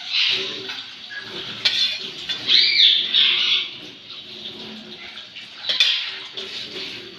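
Metal utensils clinking and knocking against cookware, with a couple of sharp clacks, while birds call in the background.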